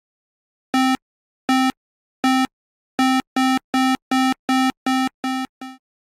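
Video-game-style synthesizer beeps, all on one note: three spaced apart, then a quicker run of eight, the last one quieter and shorter.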